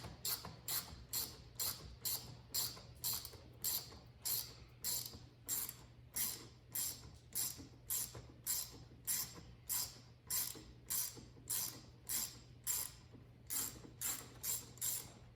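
Hand ratchet with an 8 mm socket being swung in steady back-and-forth strokes, about two a second, each stroke a burst of pawl clicks, as it backs out the fasteners of the factory air box cover. The ratcheting stops at the very end.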